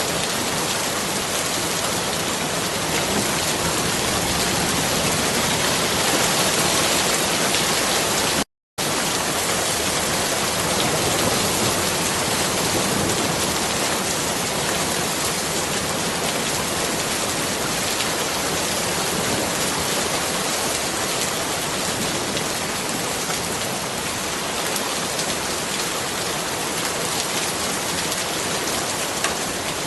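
Steady rain falling, an even hiss, with a brief cut to silence about eight and a half seconds in.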